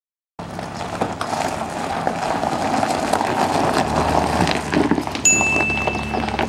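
Footsteps crunching on gravel, over a low steady hum, starting abruptly a moment in. A steady high tone sounds for about a second near the end.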